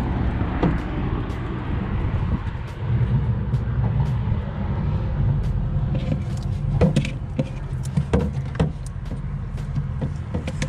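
Steady low rumble of road traffic on the bridge overhead. A few sharp knocks and thuds from about seven seconds in, as fish are shifted around inside a plastic cooler.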